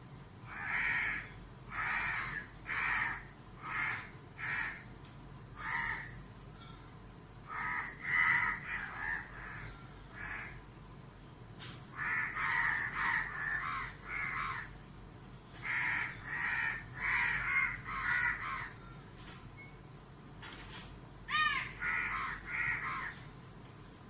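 A group of house crows cawing over and over in quick runs, with short pauses between the runs: mobbing calls aimed at a barn owl.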